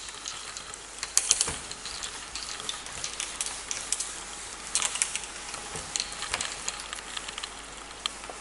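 Handheld whiteboard duster rubbing writing off a whiteboard in quick, uneven scraping strokes.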